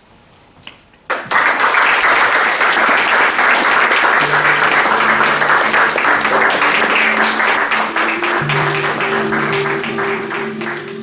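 An audience breaks into applause about a second in, sudden and loud, and claps on steadily. From about four seconds in, soft music with slow, held low notes plays beneath the clapping.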